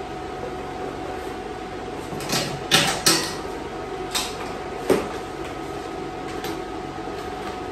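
A handful of sharp metal knocks and clanks as the welding gun and the steel grill frame are handled, the two loudest close together about three seconds in, over a steady hum.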